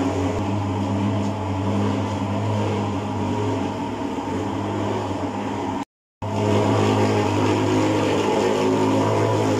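Thermal fogging machine's pulse-jet engine running with a loud, steady, low drone while pumping insecticide smoke. The sound cuts out for a moment a little past halfway, then carries on unchanged.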